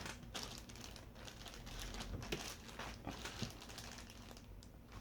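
Faint crinkling and rustling of packaging being handled, a scatter of short crackles throughout.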